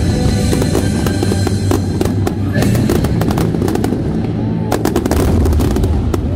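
Aerial fireworks bursting over loud music with a drum beat; a quick run of sharp bangs about five seconds in.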